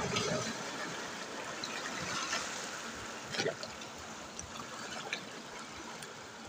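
Sea water washing and trickling over a rocky shore, with small waves breaking, and a few short clicks and one brief louder knock about three and a half seconds in.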